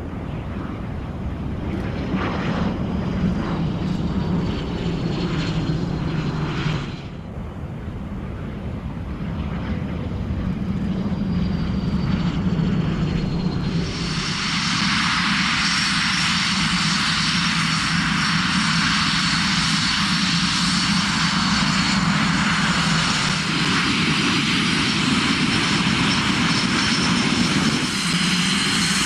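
Northrop F-5 Tiger II's twin J85 turbojets running at low power as the fighter rolls and taxis: a steady jet hiss with a thin whine that falls slowly in pitch over the first half. About halfway through the sound changes abruptly to a louder, steadier high hiss and whine.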